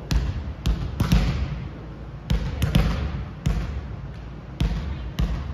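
Volleyballs being struck and hitting a wooden gym floor: about nine sharp smacks at irregular intervals, each echoing briefly in the large hall.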